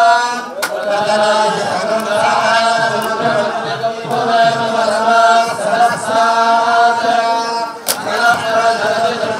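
Hindu pooja mantras chanted in Sanskrit, the voices running on without a break over a steady low hum. A sharp click sounds about half a second in and another near the end.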